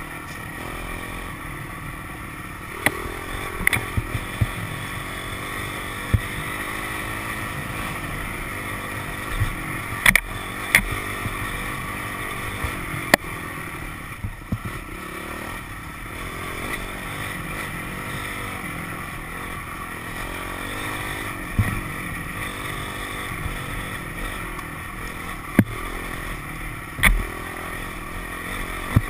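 Dirt bike engine running under varying throttle, its pitch rising and falling, with sharp knocks every few seconds as the bike rides over a rough dirt trail.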